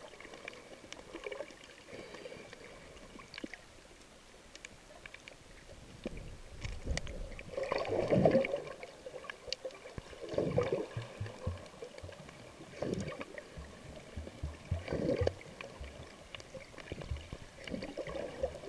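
Underwater sound through a submerged camera: muffled swishing surges of water come every couple of seconds, the strongest about eight seconds in, with scattered faint clicks in between.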